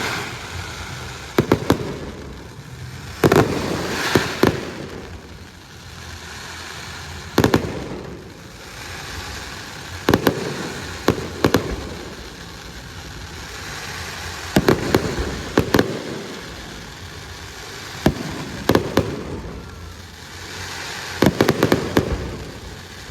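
Aerial fireworks display: shells bursting with sharp bangs every two to four seconds, several in quick clusters of two or three, each followed by a fading rumble.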